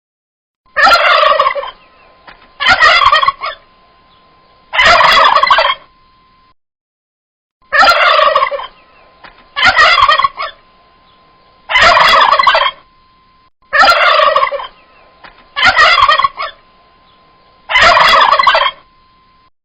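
Turkey gobbling: nine separate gobbles of about a second each, coming roughly every two seconds, with a faint steady tone between some of them.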